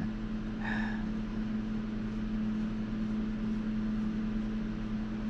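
Steady mechanical hum with a constant low drone, like a motor or fan running, with a faint brief sound about a second in.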